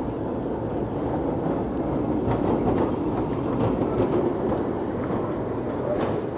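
Vintage electric street tram passing close by, its wheels rumbling steadily on the rails, with a couple of sharp clicks about two seconds in and near the end.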